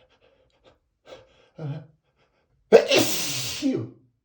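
A man's loud, exaggerated allergy sneeze about three seconds in, lasting about a second, after two short catching breaths.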